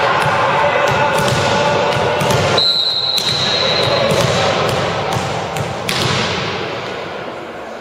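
Crowd voices murmuring and echoing in a sports hall, with a referee's whistle blown once, held for about a second and a half near the middle, signalling the serve. Several sharp knocks of a volleyball being bounced on the court floor by the server.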